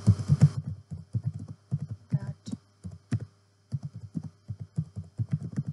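Typing on a computer keyboard: quick, irregular key clicks in short runs with brief pauses, as a sentence is typed into a text box.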